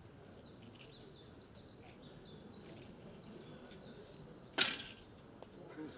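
Faint outdoor background with a string of short, high, falling chirps, and one sudden loud burst of noise about four and a half seconds in.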